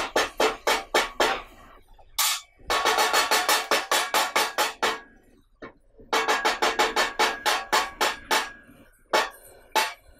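Kathakali percussion accompaniment: rapid runs of sharp metallic strikes, about six a second, with a ringing tone under them, played in three phrases with short pauses between.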